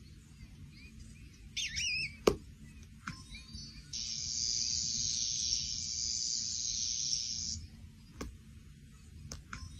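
Short warbling chirps, like the bird sounds of a tablet cat game, with a sharp tap about two seconds in. Then a steady high hiss lasts about three and a half seconds.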